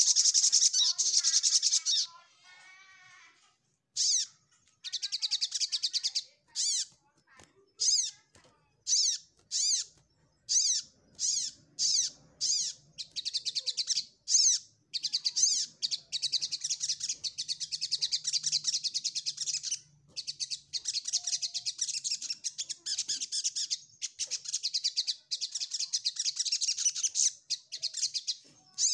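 Male olive-backed sunbird singing: rapid, high-pitched twittering trills in long runs, broken by short separate chips and brief pauses, with one buzzier, lower phrase about two seconds in.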